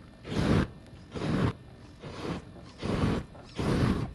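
Flamethrower on a radio-controlled monster truck firing in five short bursts, about one every 0.8 seconds, each a loud rushing whoosh of flame.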